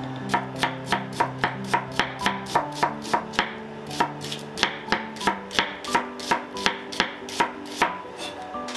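Chef's knife slicing an onion on a wooden cutting board: a steady run of sharp knocks, about three to four a second, each stroke striking the board, with soft background music under it.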